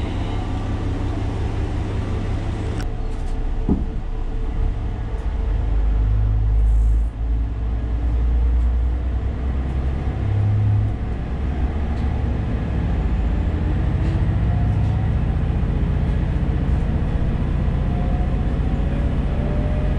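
Diesel railcar's engine rumbling as the train pulls away from the station, swelling in surges as it takes power. There is a single sharp click about three seconds in, and from about two-thirds through a faint whine rises steadily as the train gathers speed.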